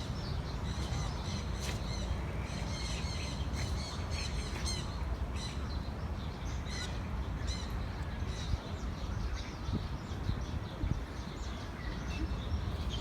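Several birds chirping and squawking in quick, short calls, busiest a few seconds in and thinning out later, over a steady low rumble.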